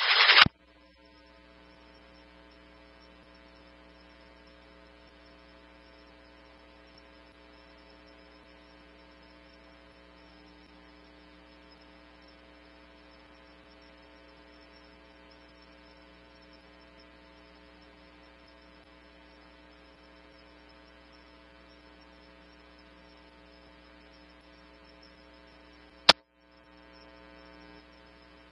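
Idle police radio scanner feed: a steady electrical hum of evenly spaced tones with no transmission, broken by one sharp click near the end.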